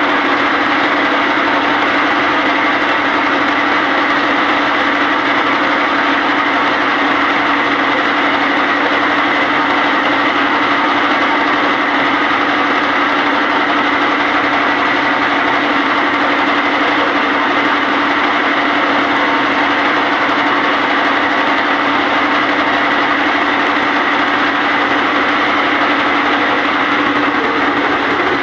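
A motorboat's engine running steadily as the boat travels across open water, heard from on board.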